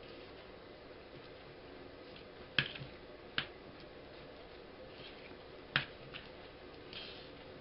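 Icing of powdered sugar being stirred in a plastic bowl: soft scraping of the utensil through the thick glaze, with three sharp clicks of the utensil knocking against the bowl.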